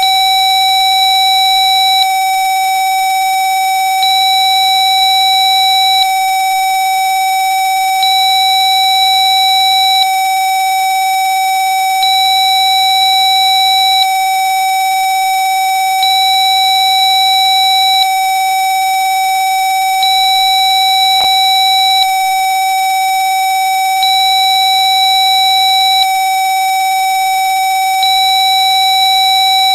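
Electronically generated steady tone at 760.9 Hz, a Rife frequency-therapy tone, with a higher, thinner tone switching on and off every two seconds above it.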